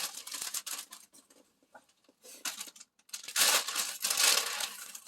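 Sheets of dried laver (gim) being crumbled by hand: dry crackling and tearing in short bursts, with a longer, louder spell about three seconds in.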